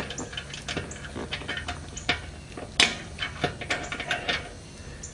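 Bolt and washers clinking against the gas tank's metal mounting tang as the bolt is worked through the hole: a run of irregular light metallic clicks and taps, the sharpest a little under three seconds in.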